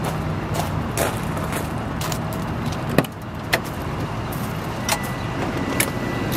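Caterpillar C9 inline-six diesel engine idling steadily in a truck's open engine bay, with a few sharp clicks and knocks over it.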